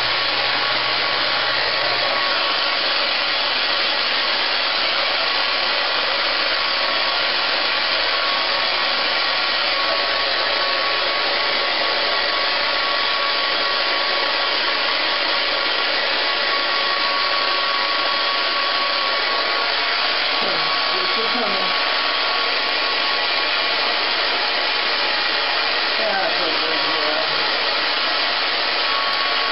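Handheld hair dryer blowing steadily on a freshly bathed small dog's wet coat, a steady high whine running through the rush of air.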